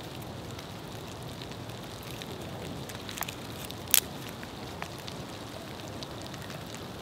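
Small fire of paper birch bark and twigs just catching inside a drilled log stove, burning with a faint steady crackle and hiss, with a few sharp snaps, the loudest about four seconds in.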